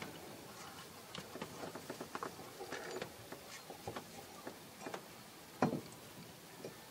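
Faint, scattered small clicks and light metal taps of a bolt being worked by hand through a clutch master cylinder mounting on a truck firewall, with one slightly louder knock about five and a half seconds in.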